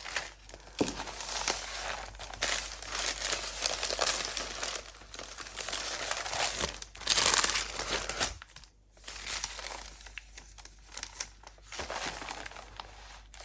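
Paper rustling and crinkling as journal pages and paper pieces are handled, with a louder crackle about seven seconds in.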